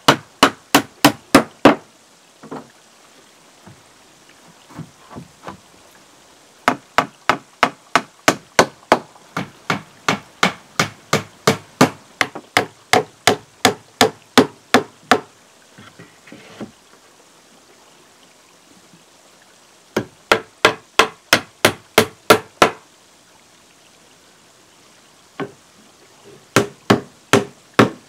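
Hammer blows on timber boards in four runs of quick, even strikes, about three a second, with pauses of a few seconds between runs. The longest run has some two dozen blows.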